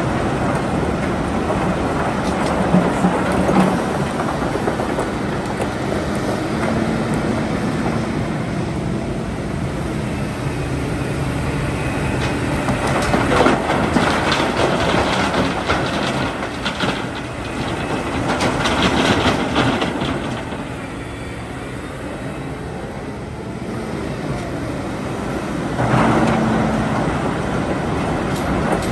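Heavy excavator at work: its diesel engine runs steadily with a droning tone that comes and goes, and bursts of metallic clanking come in the middle and again near the end.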